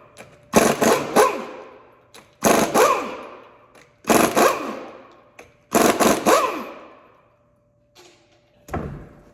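Metal hammer blows on steel car brake parts, struck in clusters of two or three about every two seconds, each cluster ringing out for over a second.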